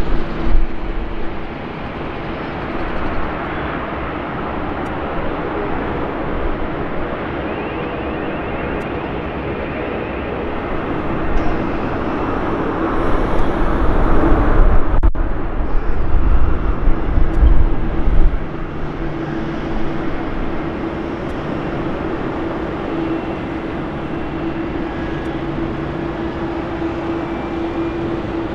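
Jet airliner engines running on the ground, first an Airbus A330 moving along the runway and then an Airbus A380 taxiing. The engines give a steady rumbling drone with a constant hum. The noise swells for several seconds about halfway through, then settles back to a steady drone.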